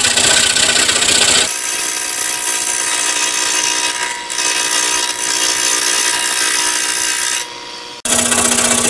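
Scroll saw running and cutting through a stack of thin wood layers, a steady machine sound with a constant motor hum. Its character changes abruptly about a second and a half in, dips briefly near the end, then comes back suddenly.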